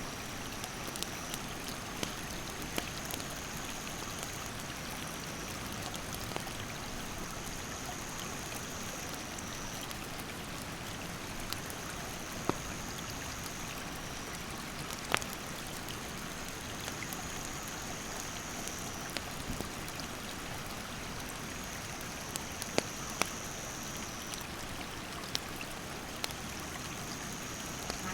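Steady rushing of a mountain stream, with a wood campfire crackling: sharp pops scattered through, a few much louder than the rest. An insect calls in a steady high trill that starts and stops every few seconds.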